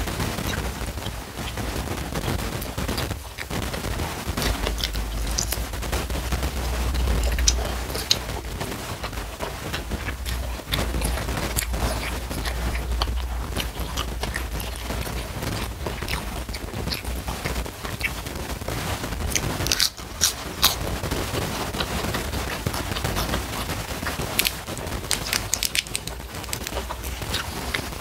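Close-miked eating: chewing rice and crunching raw lettuce, with dense crackling clicks throughout.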